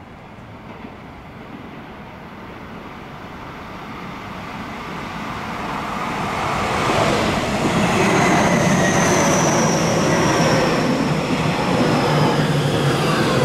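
Tobu Tojo Line electric train approaching, growing steadily louder over about seven seconds, then running loud with a high whine that slowly falls in pitch.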